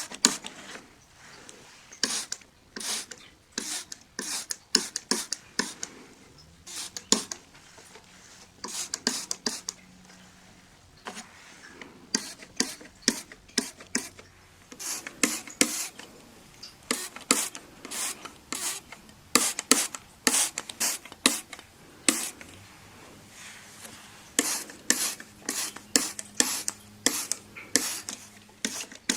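A window being cleaned: glass cleaner spritzed from a spray bottle and a cloth rubbing over the glass, in many short hissing strokes that come in runs with brief pauses.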